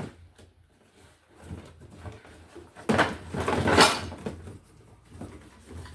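Small metal parts clattering and clinking as someone rummages through a supply of electrical fittings, loudest about three to four seconds in.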